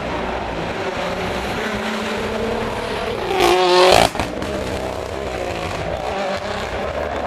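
Rally car engine revving hard through a hairpin. It is loudest and high-pitched for about half a second, three and a half seconds in, as it passes close, then drops back to a steadier drone as the car pulls away.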